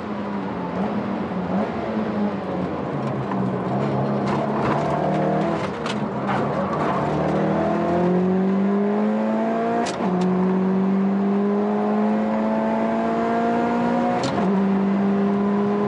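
Subaru WRX STI (VAB) with an upgraded turbocharger, its EJ20 turbocharged flat-four heard from inside the cabin on a flat-out lap. The revs waver lower for the first half, then climb hard, with an upshift about ten seconds in and another near the end, rising again after each.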